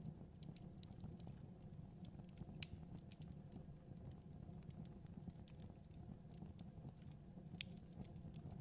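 Wood fire burning in a fireplace, faint: a low steady rumble of flames with irregular crackles and pops, two sharper pops about two and a half seconds in and near the end.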